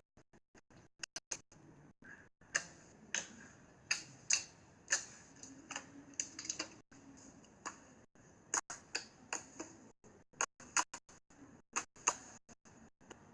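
Slime being squeezed and poked, giving irregular crackling clicks and pops, faint and uneven, one to three a second.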